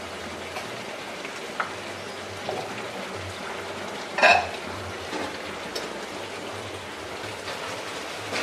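Vegetables sizzling steadily in a frying pan over a gas burner, with a few light clicks from stirring and cutting, and one louder metallic clank about four seconds in.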